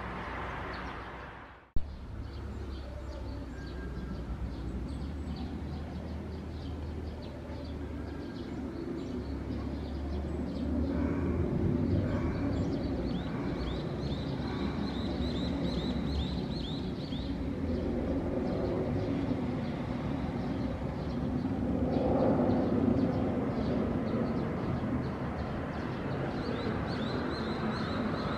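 Embraer 175 airliner's twin turbofans heard from the ground as it climbs away after takeoff: a steady low jet rumble that swells twice. Birds chirp faintly. About two seconds in, the sound cuts out briefly and ends in a sharp click.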